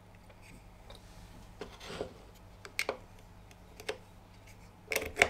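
Faint, scattered plastic clicks and taps from handling a microSD card in a small USB card reader and plugging the reader into a computer, the loudest clicks near the end.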